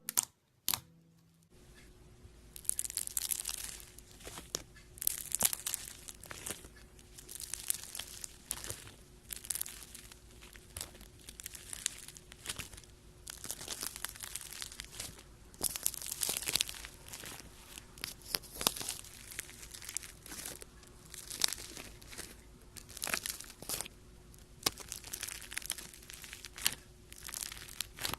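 Slime being squeezed and pressed by hand, crackling and clicking in repeated squishes about every second and a half to two.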